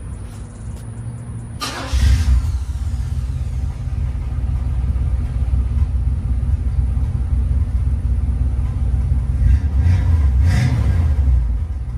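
1988 box Chevy's engine firing up about two seconds in on a newly installed battery, then running with a loud rumble, revved up briefly near the end.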